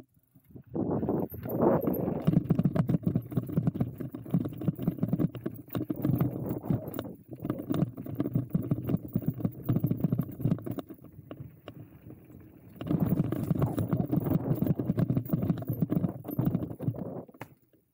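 E-mountain bike clattering downhill over rough trail: a dense, irregular run of knocks and rattles from the frame and tyres. It eases off briefly past the middle, then picks up again.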